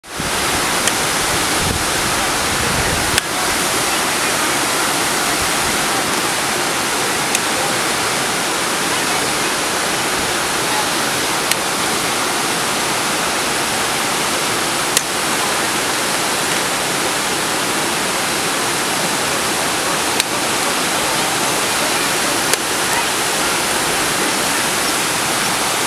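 Second Falls, a waterfall, cascading steadily over rock ledges: a constant, even rush of water, with a few faint clicks scattered through it.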